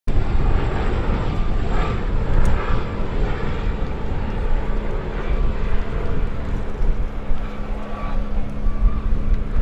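Aircraft running steadily: a constant low rumble with a steady hum and engine noise, starting abruptly.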